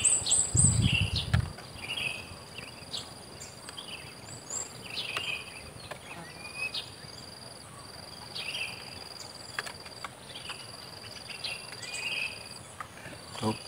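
Insects drone steadily at a high pitch, with a second, lower insect tone that switches on and off. Short chirps recur every second or so. A louder low rumble fills the first second and a half.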